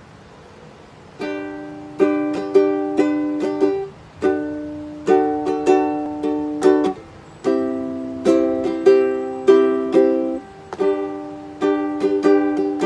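Ukulele strummed in chords, starting about a second in; each strum rings on, and the chord changes every few seconds.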